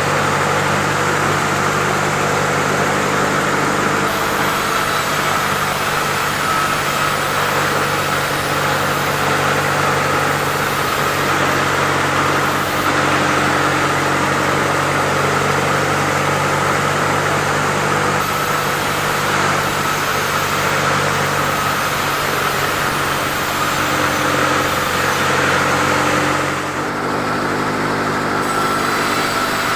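Sawmill machinery running steadily, an engine-like hum with a high whine over it; the note changes and dips slightly about 27 seconds in.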